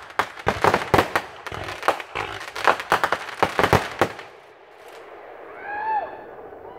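Aerial fireworks bursting in a rapid barrage of sharp bangs and crackles, which stops about four seconds in. Near the end a person's voice calls out once, falling in pitch.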